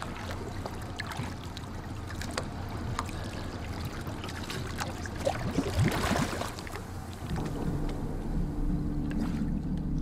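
Sea water sloshing and splashing around a diver at the surface beside a small boat, with a louder rush of splashing and bubbles about six seconds in as the camera goes under the waterline. A low steady drone of background music comes in about seven seconds in.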